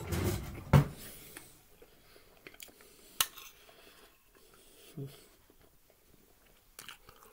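Fork and spoon clicking and scraping against a plate of sauced ribs, with a few separate clicks, the sharpest about three seconds in. Rustling and a loud thump come in the first second.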